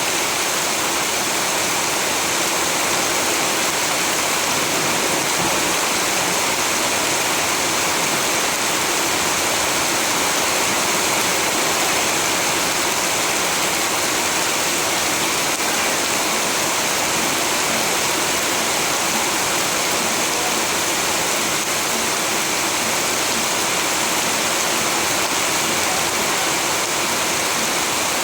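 Steady, heavy rain falling, an even hiss with no distinct drops or changes.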